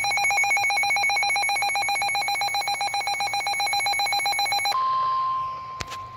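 A rapidly pulsing electronic alert tone stops abruptly. It is followed by the steady single-pitch 1050 Hz warning alarm tone of NOAA Weather Radio, the tone that precedes a National Weather Service warning message. A short click sounds just after the steady tone begins.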